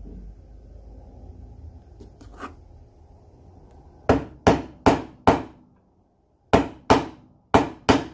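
Hammer tapping a drift punch to drive the dowel pin out of a distributor's drive gear, the gear resting on a wood block. The first few seconds hold low handling noise. The tapping starts about halfway in: four quick taps, a short pause, then four more near the end.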